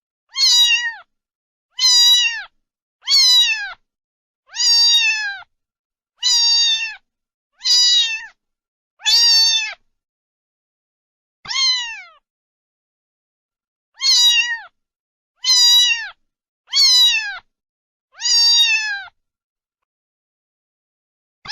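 A cat meowing over and over, about a dozen short meows, each falling in pitch at the end, with silence between them and a couple of longer pauses.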